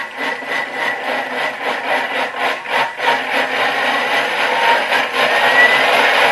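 Thermomix food processor blending at speed 5, pureeing cooked vegetables with water and tomato concentrate. A fast churning pulse for the first three seconds settles into a steadier whir that grows louder.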